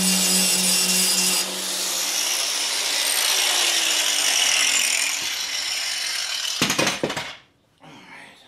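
Angle grinder grinding steel around the welded shaft of a lawn roller. The grinding stops about six and a half seconds in, followed by a brief clatter.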